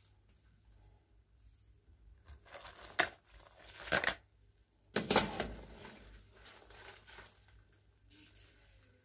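Boiled crayfish being scooped out with a mesh skimmer and tipped into a plastic bowl, their shells clattering and rustling, with sharp knocks about three and five seconds in.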